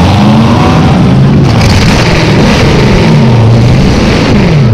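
V8 engine of a demolition derby Chevrolet Caprice revving hard, its pitch rising and falling over and over, loud through open pipes. A rushing hiss joins about a second and a half in.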